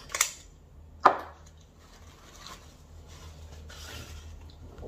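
A couple of quick sharp taps, then a louder knock about a second in, followed by faint rustling: small objects being handled and set down on a table.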